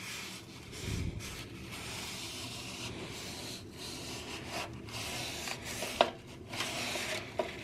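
Paper napkin rubbing over the inside of a steel PC tower case in repeated uneven strokes, wiping at drying rust converter, with a sharp click about six seconds in and another near the end.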